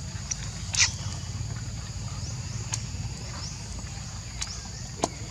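Outdoor ambience: a steady low rumble under a short, high rising chirp that repeats about twice a second. Two sharp clicks stand out, a louder one about a second in and another near the end.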